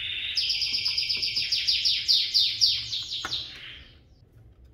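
A bird singing a rapid series of repeated high chirps, about six a second. The chirps grow louder and stop a little after three seconds in.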